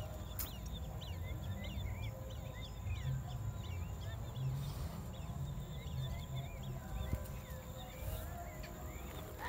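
Many small birds chirping, with short overlapping notes that rise and fall, over a low steady rumble.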